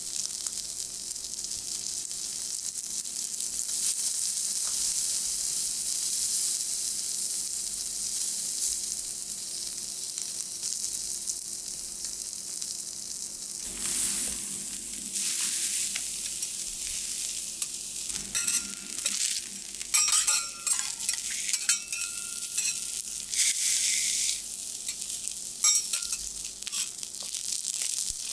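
Ayu (sweetfish) sizzling in oil on a steel teppanyaki griddle. From about halfway, metal spatulas scrape and clink against the griddle in short bursts as the fish is lifted off its bones.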